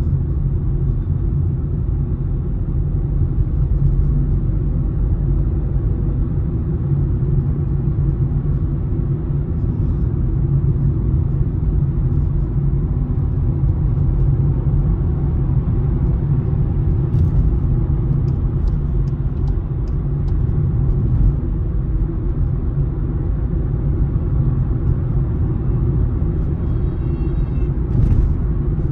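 Steady low rumble of a car in motion, tyre and engine noise heard from inside the cabin. Near the end comes a brief buzzy sound.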